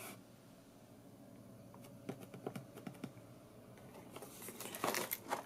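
Faint scattered light clicks and taps from handling, becoming busier in the last second or so.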